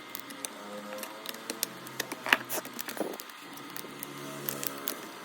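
Scattered light clicks and taps, irregular and sharp, of small parts and tools being handled during a laptop repair, over a steady low hum.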